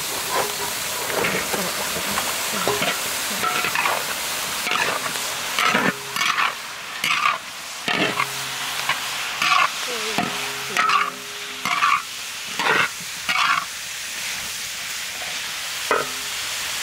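Metal spatula scraping and turning vegetables and meat in a large wok over a steady frying sizzle. The scrapes come in quick strokes, roughly one a second, most of them through the middle.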